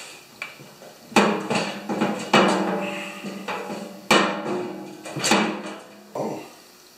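Steel auger of a John Deere TRS 24 snowblower knocking against its shaft and housing as it is worked into place by hand: about five loud metallic clanks, each ringing on briefly.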